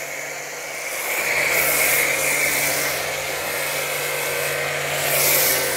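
Aimex D7 1800-watt electric pressure washer running steadily, its motor and pump humming while the foam cannon hisses out a spray of shampoo foam. The sound grows louder about a second in.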